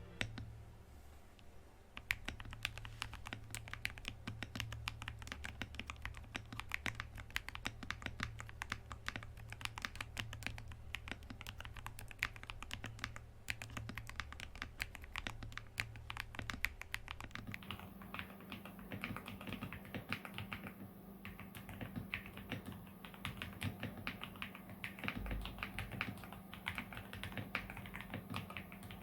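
Fast, continuous typing on a CIY GAS67 65% mechanical keyboard, starting about two seconds in. About halfway through, the keystrokes turn duller.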